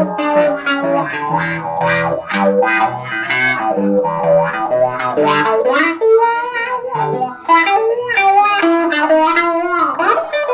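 Solo electric guitar, a Telecaster played through a Roland JC-120 amp, picking a passage of low bass notes under a higher melody line. About ten seconds in, one note is bent up and back down.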